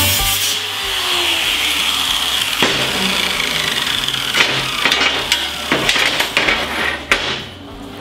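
Angle grinder on the welds of a steel frame, its high whine slowly falling as it winds down. Sharp metal knocks and clanks follow as the steel frame is handled.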